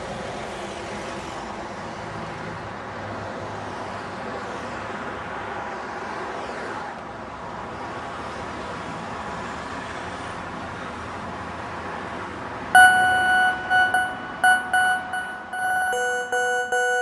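Steady hum of road traffic in a slow-moving jam, engines running. About 13 seconds in, car horns start honking: short blasts at first, then held, with a second, lower horn joining near the end.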